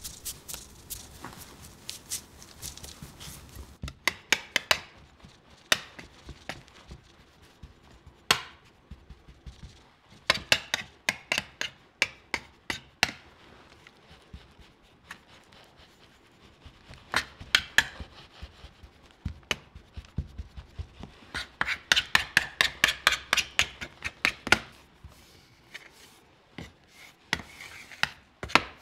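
Crumbly shortbread dough being pressed and patted flat into a stainless steel square ring mould with a spatula and the back of a spoon: runs of quick, sharp taps with quieter pauses between.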